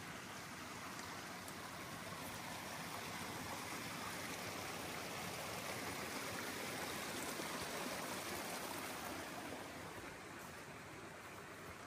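Small mountain stream flowing over rocks, growing louder through the first part and fading near the end.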